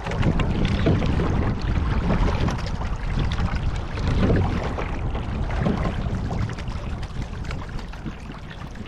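Water rushing and splashing along the hull of a rowing shell under way, with wind rumbling on the microphone. The noise swells every couple of seconds and dies down over the last few seconds.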